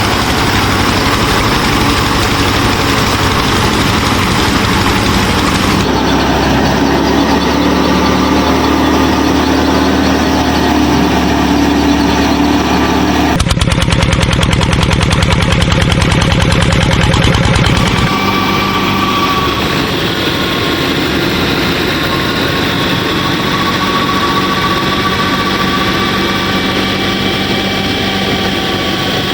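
An engine running steadily with a low, even drone. Its sound changes abruptly about six, thirteen and eighteen seconds in, with a fast, fine pulsing stretch between thirteen and eighteen seconds.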